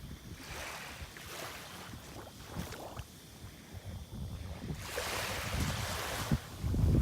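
Ocean surf washing onto a beach, two waves surging in a few seconds apart, with wind buffeting the microphone in low rumbles and thumps that grow stronger near the end.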